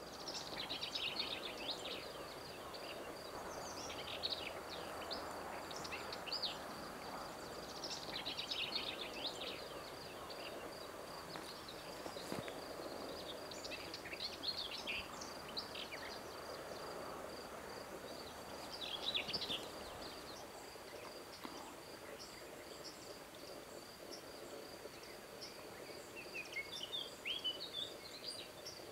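Outdoor field ambience: an insect trilling steadily on one high pitch, with short bird song phrases repeating every few seconds, over soft background noise.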